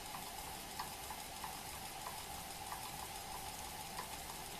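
Variable-speed metal lathe with a DC motor drive running steadily: an even whirring hum with faint light ticks two or three times a second.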